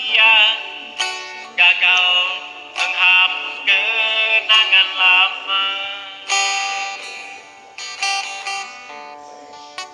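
A voice singing to a plucked string instrument, with notes picked out one by one. The music grows softer over the last few seconds.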